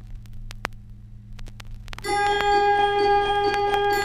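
Vinyl record playback: surface crackle and scattered clicks over a low steady hum. About two seconds in, the music of the song's introduction starts, a held note with lighter struck notes repeating over it.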